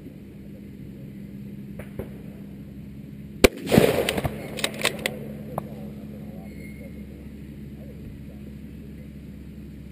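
A single bolt-action precision rifle shot about three and a half seconds in, a sharp crack with a short rolling echo, followed by a few quick metallic clicks of the bolt being worked.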